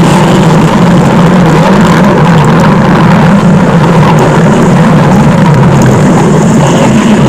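Stomach growl sound effect running on without a break: a loud, steady low rumble.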